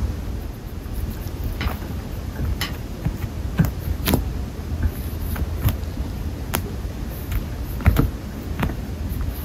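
Irregular light clicks and taps, roughly one a second, from kittens batting at a plastic-stick feather wand toy on a wire cage floor, over a steady low rumble. The sharpest taps come about four and eight seconds in.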